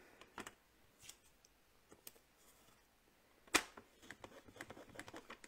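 Quiet handling of cardstock and craft tools on a table: a single sharp click about three and a half seconds in, then faint small ticks and rustles.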